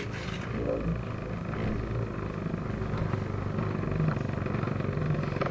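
Beyblade Metal Fusion spinning top whirring steadily on the plastic floor of its stadium as it spins down.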